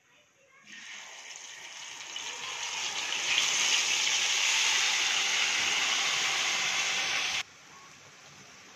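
Masala-coated potato slices sizzling as they are tipped into hot oil in a kadai. The sizzle starts under a second in, builds over a couple of seconds to a loud, steady hiss, then stops abruptly near the end.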